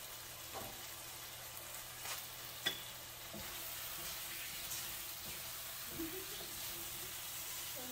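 Curry-seasoned potato pieces sizzling in a hot pan while a spoon stirs them, with a few sharp clicks of the spoon against the pan, the loudest a little under three seconds in.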